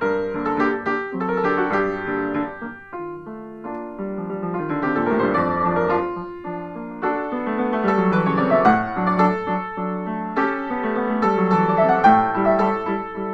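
Solo upright piano playing a polonaise, with fast sweeping runs in the middle of the passage.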